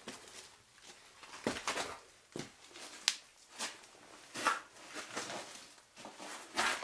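A caver's scuffing steps on sandstone, with clothing rustle and his breathing, in a narrow cave passage: irregular scrapes and shuffles about once a second, with one sharp click about three seconds in.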